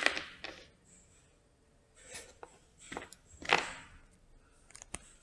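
Faint handling sounds on a wooden workbench: a few light clicks and soft scrapes as a small XT60 connector, a length of silicone wire and a pair of pliers are set down and picked up, with a little cluster of clicks near the end.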